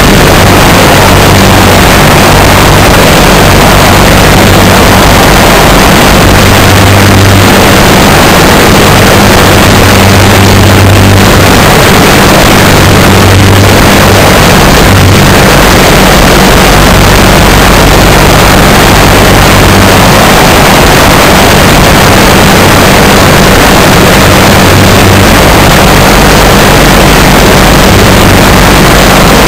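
Legal Eagle ultralight's engine and propeller running steadily in flight: a loud, close engine drone under a heavy rush of noise, with a low hum that wavers slightly.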